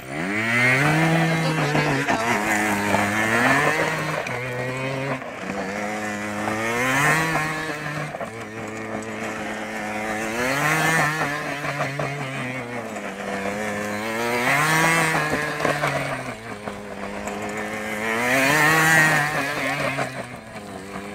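50cc two-stroke scooter engine revved hard in a stationary burnout, the rear wheel spinning on gravel: the pitch climbs, holds high and drops back about every four seconds, over and over.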